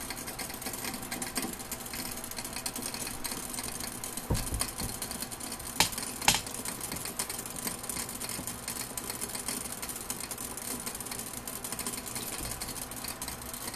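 Water boiling hard in the glass boiling flask of a small steam still, a dense steady bubbling rattle, with a dull knock and then two sharp clicks around the middle.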